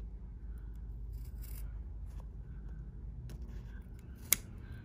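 Scissors cutting through a folded fabric strip: faint, light cutting noise with one sharp click near the end.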